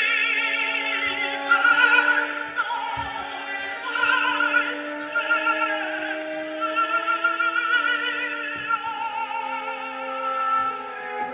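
Operatic singing with a strong vibrato over a sustained low accompanying note.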